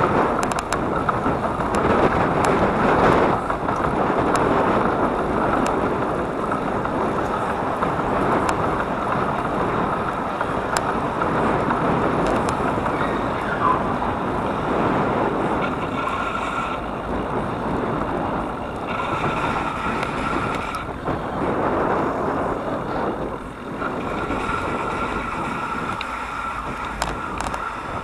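Steady rushing wind and road noise from riding, with airflow buffeting the microphone; the level rises and falls without a break.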